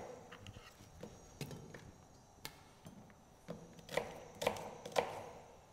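Kitchen knife cutting an onion coarsely on a plastic cutting board: a series of separate, faint cuts, with three louder knocks about half a second apart in the second half.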